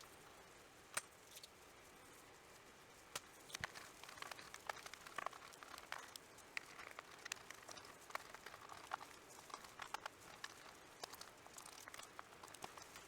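Faint irregular clicks, taps and rustling of plastic computer parts being handled: a Commodore 64 keyboard and case being worked on. One sharp click comes about a second in, and the small clicks come thick from about three seconds on, over a steady fan hiss.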